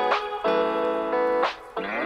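Background music led by guitar chords.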